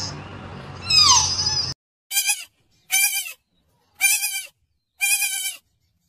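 A wavering call sliding down in pitch over a low hum, cut off abruptly about two seconds in. Then four short, evenly spaced bleats, about one a second.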